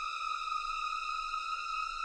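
A sustained synthesized tone, high and steady with a stack of overtones, its pitch creeping slowly upward.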